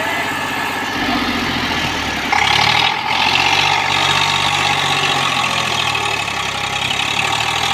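Eicher 548 tractor's diesel engine working hard to pull the stuck tractor out of deep mud, getting suddenly louder about two seconds in and staying loud.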